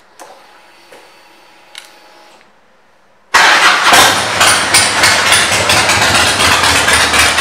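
Harley-Davidson Softail Deuce's Twin Cam 88B V-twin, fitted with aftermarket pipes and intake, starting up about three seconds in and then running loudly. A few faint clicks come before it.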